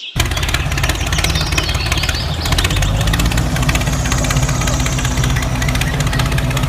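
A motor running steadily with a fast rattle, starting abruptly just after the start.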